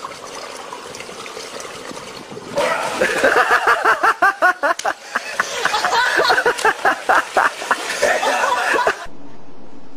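Splashing water, then people laughing hard in quick repeated bursts for several seconds. Near the end it cuts off abruptly to a steady hum.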